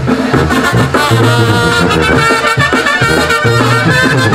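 Live brass band playing dance music: a sousaphone's bass notes under the higher brass carrying the melody.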